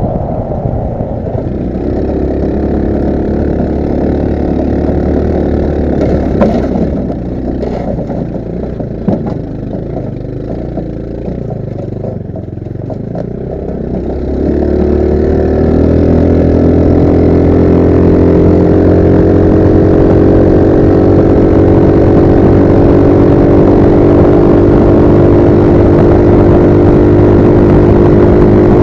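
Roketa GK-06 go-kart engine running under varying throttle, with some rattling knocks, then revving up about halfway through and holding a steady, louder drone.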